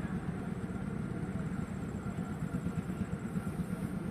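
Steady low drone of a small engine running, with a rapid fine flutter and no change in pitch.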